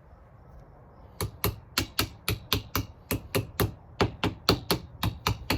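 A rapid series of sharp metal taps, about four a second, starting about a second in. It is a hammer driving the CV joint's tripod down the axle shaft to seat it so the snap ring groove shows.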